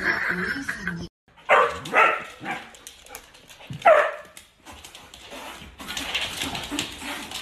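A dog barking, four short loud barks over about two and a half seconds, the last one sliding down in pitch.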